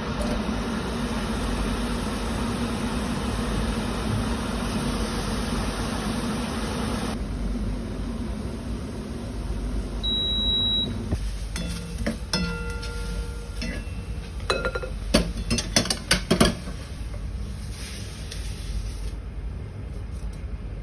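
Kitchen cooking sounds: a steady hiss for the first seven seconds, a single electronic beep about ten seconds in, then a run of sharp clinks and knocks of utensils and dishes, some ringing, loudest around fifteen to sixteen seconds.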